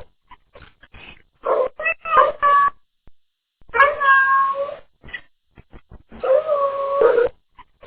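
Domestic black cat giving three long, drawn-out meows that bend in pitch, about two and a half seconds apart. The owner hears them as the words 'hello, good morning, get up right now.'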